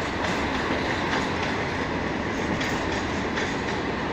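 Freight train rolling slowly on the rails: a steady rumble of wheels and cars with a few clacks over the rail joints.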